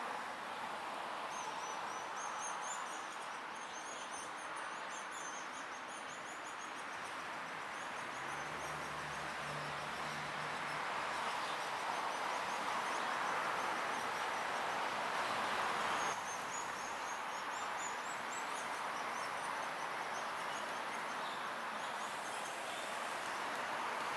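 Steady background noise with rapid series of short, high-pitched bird chirps, once near the start and again past the middle; a brief low hum sounds for a few seconds in between.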